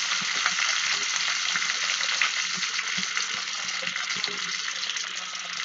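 Hot oil sizzling steadily in a kadai as chopped onion, chillies and curry leaves fry in a mustard-seed and dal tempering, with light ticks from stirring. The sizzle slowly dies down.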